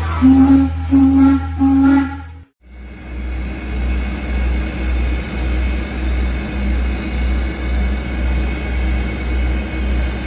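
Intro music with three loud notes that cuts off about two and a half seconds in. Then the 1924 Baldwin 2-10-0 steam locomotive No. 90 standing at rest: a steady hiss over a low pulsing beat about twice a second.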